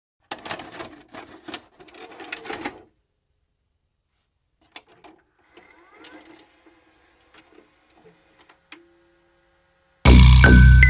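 Clicking and clattering of a VHS cassette mechanism, like a tape being loaded into a VCR, then a few scattered clicks and a brief hum. Loud electronic music comes in about ten seconds in.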